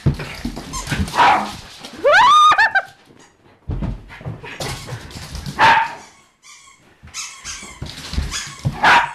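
Puppy barking and yipping in excited play, several short loud barks, with thudding footsteps of a person running and a short rising squeal about two seconds in.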